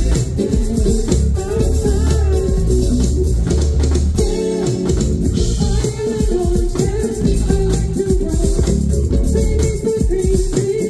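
Live band music led by an electric bass guitar, with a drum kit playing behind it, amplified through the stage sound system.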